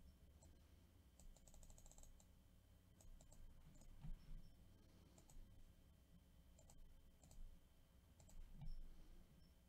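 Faint, scattered clicks of a computer mouse and keyboard, with a quick run of rapid clicks between one and two seconds in. Two soft low thumps, one near the middle and one near the end, are the loudest sounds.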